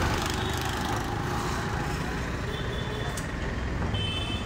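Busy street traffic: a steady rumble of engines and road noise, with short high beeps about halfway through and again near the end.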